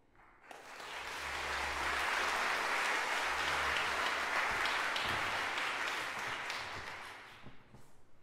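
Audience applauding. It swells up about half a second in, holds, and dies away near the end.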